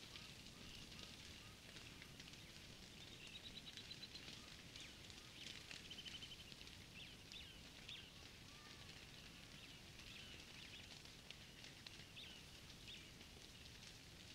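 Faint bush ambience of distant birds: short high chirps and a couple of quick trills, over scattered soft crackles and a low rumble.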